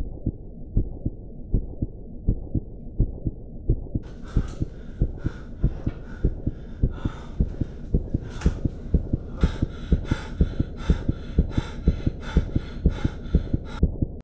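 Heartbeat-like soundtrack pulse: regular low thumps about two a second, quickening a little. About four seconds in, a brighter pulsing layer joins and keeps time with the beats.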